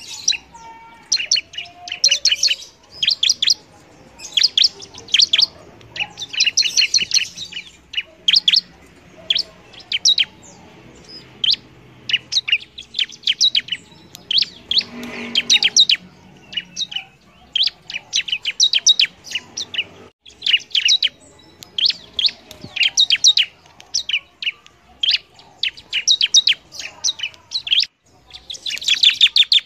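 Bar-winged prinia (ciblek) singing vigorously: short, high phrases of rapid sharp chirps, repeated every second or two with brief gaps.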